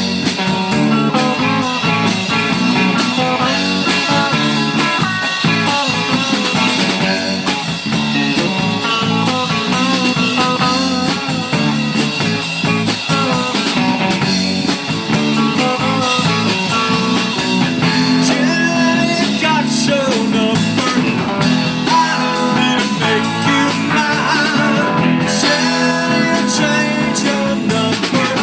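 Live rock band playing with electric guitars, bass guitar and a drum kit, loud and unbroken.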